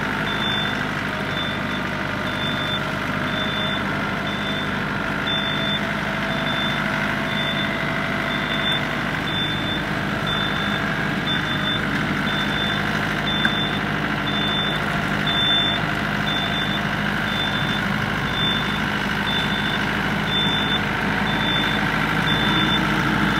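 Yanmar tractor's diesel engine running steadily in reverse while being winched out of mud, its reversing alarm beeping at an even pace, about three beeps every two seconds.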